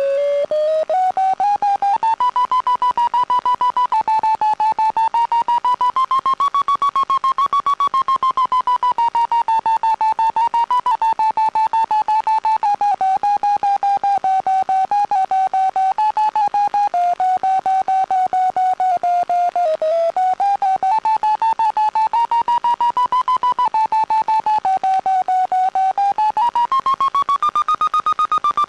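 Audio variometer tone from a Pitlab FPV system, beeping rapidly as one electronic pitch that slides up and down with the aircraft's climb rate. It rises to its highest near the end as the plane climbs in a thermal.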